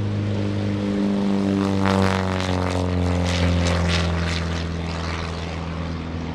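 Christen Eagle aerobatic biplane flying past, its propeller and four-cylinder Lycoming engine running steadily. The sound grows to its loudest about two seconds in, then drops in pitch with a sweeping, phasing sound as it goes by and slowly fades.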